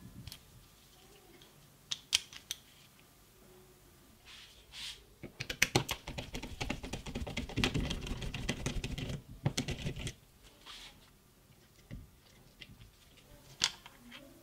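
Screwdriver undoing the case screws of a plastic 12V power-tool battery pack: a dense run of rapid small clicks and scrapes from about five to ten seconds in, with scattered clicks of bits and plastic being handled before and after.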